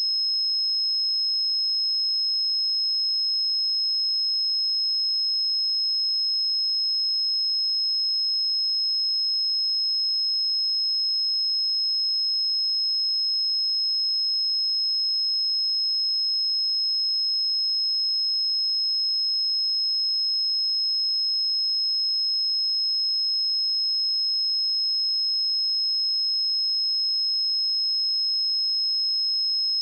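A pure 5161 Hz sine-wave test tone, a single steady high-pitched tone held at constant level.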